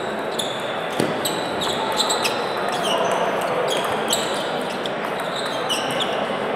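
A table tennis rally: the ball clicks sharply off bats and table several times a second. More ball hits from other tables in the sports hall mix in.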